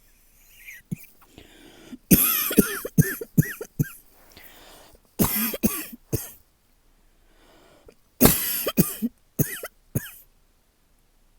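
A person coughing in three fits of several coughs each, starting about two, five and eight seconds in. The cough comes from a tight chest brought on by seasonal allergies, not from illness.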